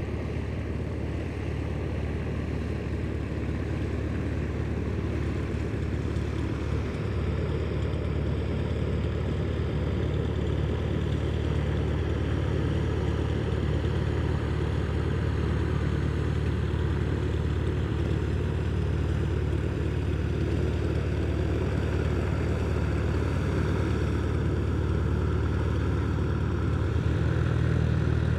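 A Van's RV-8's piston engine and propeller running steadily at low power. It grows gradually louder as the plane comes closer and picks up a little more power near the end.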